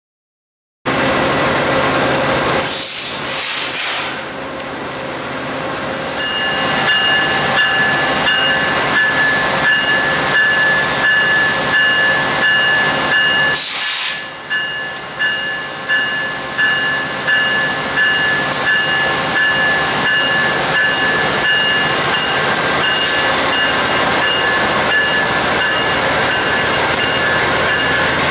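VIA Rail passenger train departing slowly from a station platform, led by a P42 Genesis diesel locomotive: the engine running under a dense rumble, with two short bursts of air hiss, one about three seconds in and one about fourteen seconds in. From about six seconds in, a steady high ringing runs with brief breaks.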